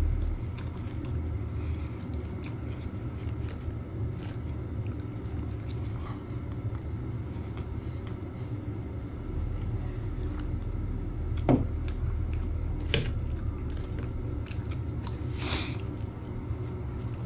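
A man eating a burger: chewing, with a knife and fork clicking and scraping on the plate, and one sharp clink a little past halfway. A steady low hum runs underneath.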